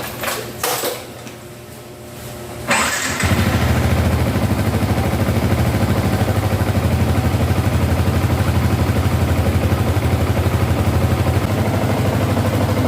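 Yamaha TFX150's single-cylinder four-stroke engine starting on the electric starter about three seconds in, catching at once and then idling steadily with an even pulse, running on freshly changed oil. A few light clicks come before the start.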